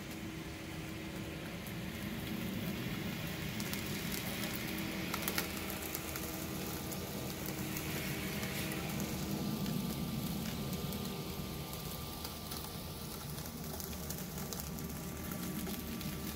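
Homemade RC lawn mower running: a 775 brushed motor spins 3D-printed blades through grass with a steady hum, over a constant crackle with many small ticks.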